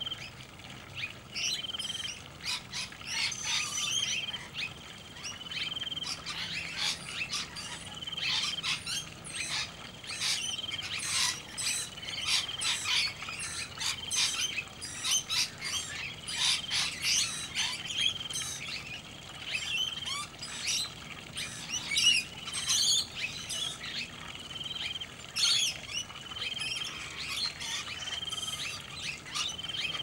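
A flock of noisy miners and rainbow lorikeets calling: many sharp chirps and squawks, with a short whistled note repeated about once a second.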